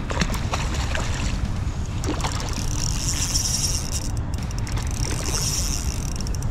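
Wind buffeting the microphone in a steady low rumble while a hooked trout splashes at the surface on a tight line. There are two short high hissing bursts partway through.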